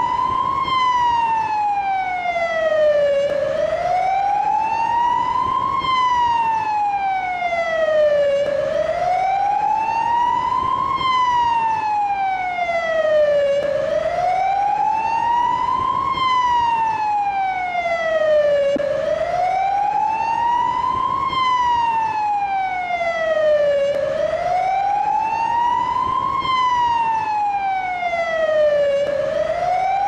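Portuguese INEM ambulance siren on its wail tone, sweeping smoothly up and down in pitch, one full rise and fall about every five seconds.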